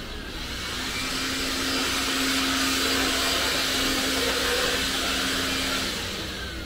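A motor-driven machine running close by: a loud, steady rushing hiss of air over a constant hum. It swells up at the start and fades near the end.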